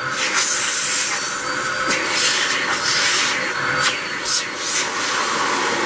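Hoover WindTunnel 3 Pro Pet upright vacuum running with its hose in use. The suction's airy rush swells and fades several times as the nozzle is worked over surfaces to pick up cat hair, over a faint steady high whine from the motor.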